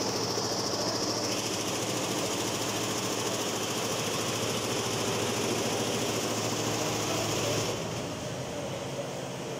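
Industrial multi-head embroidery machine with sequin attachments running, its needle heads stitching together in a rapid, steady mechanical clatter. Near the end the high hiss drops away and it gets a little quieter.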